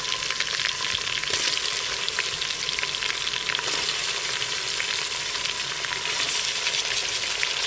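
Raw boneless beef chunks frying in hot oil in a steel pressure-cooker pot, a dense steady sizzle full of small crackles and spits, with some stirring as the pieces are pushed around. This is the searing stage, the meat just added to the oil with ginger-garlic paste and cumin.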